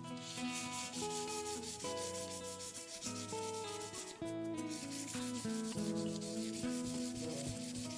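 Sandpaper rubbed in quick back-and-forth strokes on the painted body of a scale RC Jeep Cherokee, wearing through the blue paint to the gray primer. It pauses briefly about four seconds in. Background music with changing notes plays underneath.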